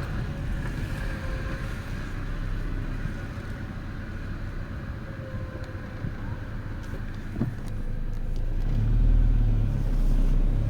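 2000 Honda Civic running with a steady low rumble and a faint wavering whine above it; the rumble grows louder for the last couple of seconds.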